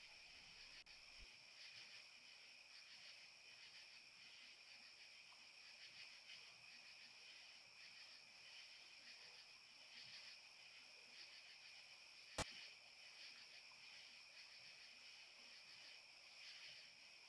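Faint, steady chorus of night insects such as crickets, a constant high trill. A single sharp click about twelve seconds in.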